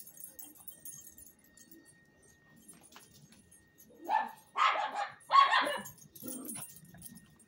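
A dog barking: three sharp barks in quick succession about four seconds in, then a weaker, lower one.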